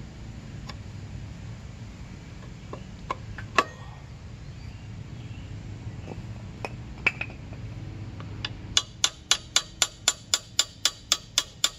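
Scattered metal clicks of a crescent wrench being fitted to a motorcycle's rear axle castle nut, with one sharper clack about three and a half seconds in. Near the end comes a fast, even run of sharp metal taps, about four a second: a hammer striking the wrench to tighten the nut.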